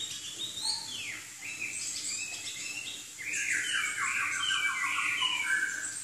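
Chinese hwamei (Garrulax canorus) singing. It gives a few separate whistled notes that slide in pitch, then from about three seconds in a louder, fast run of varied phrases that stops just before the end.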